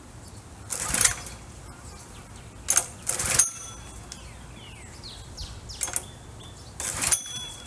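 Pressure washer's small gas engine running steadily, with three short bursts of water spray about a second in, near the middle and near the end. Birds chirp between the bursts.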